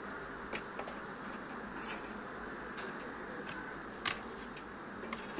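Scattered light clicks and rustles from handling PC power-supply cables and connectors, the loudest about four seconds in, over a steady hiss.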